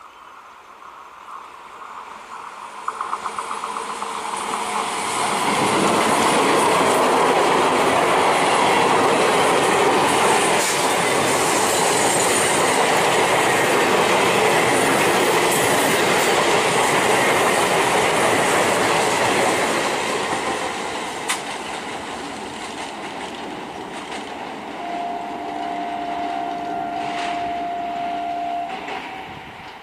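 Indian Railways electric multiple unit (EMU) local train approaching and running past close by, the wheels clattering over the rail joints, loudest for about fifteen seconds before easing off. Near the end a horn sounds steadily for about four seconds.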